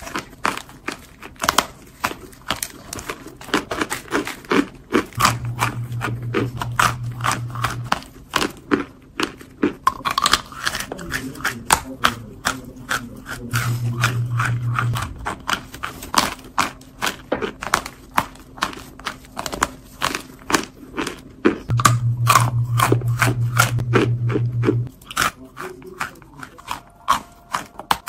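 Compacted cornstarch chunks bitten and chewed close to the microphone, a dense run of sharp, squeaky crunches. A low buzzing hum comes in three times for a few seconds each.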